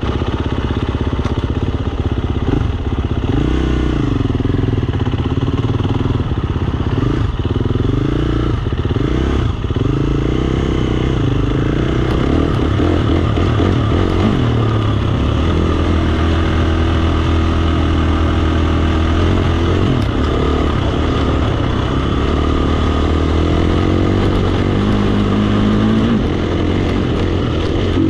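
KTM 350 XC-F dirt bike's single-cylinder four-stroke engine under way, revving up and down through the gears, then holding a steadier pitch for several seconds before revving up again near the end.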